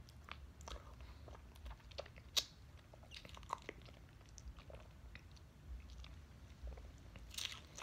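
Faint mouth sounds of eating a fruit jelly: scattered small clicks and wet smacks as the jelly is bitten and sucked from its thin skin. The sharpest click comes about two and a half seconds in, with a few more near the end.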